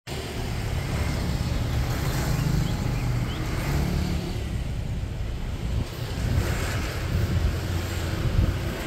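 Wind buffeting the microphone, heard as an unsteady low rumble.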